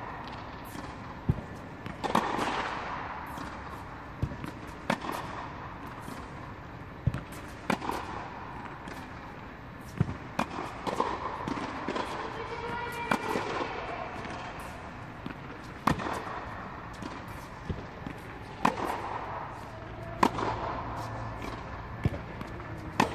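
Tennis ball struck by rackets and bouncing on a hard indoor court: sharp pops at irregular intervals of about one to two seconds, carrying in the enclosed air-dome hall.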